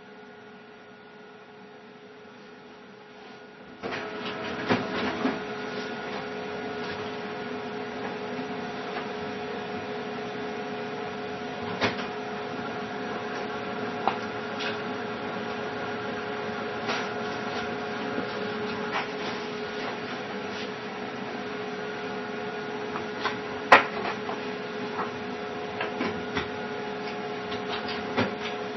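Steady machine hum with a constant pitched tone, which gets louder about four seconds in, with scattered faint clicks.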